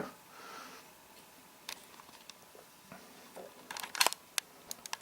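Small sharp clicks and taps from handling a lock and its small metal parts and tools, with a quick cluster of clicks about four seconds in.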